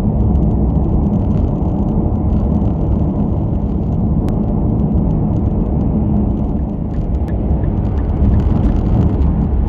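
Steady road noise inside a sedan's cabin while driving at expressway speed: tyre and engine rumble, with a few faint clicks.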